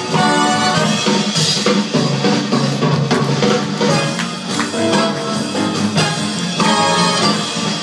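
Fast swing jazz with a driving drum beat, played over the hall's sound system.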